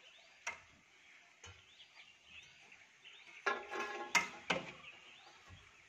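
Sharp metallic clanks and knocks from a check dam's hand-operated sluice gate mechanism being levered and cranked open, a few scattered strikes with a cluster of them and a brief ringing squeal about three and a half seconds in.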